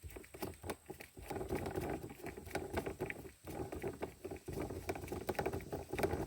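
Irregular rustling and many small clicks of hands handling the car's centre-console trim and the twisted-off gear shift knob.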